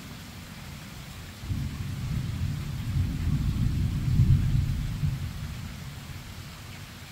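A thunder rumble over steady rain. The deep rumble starts suddenly about a second and a half in, builds to its loudest around four seconds, then dies away near the end while the rain keeps on.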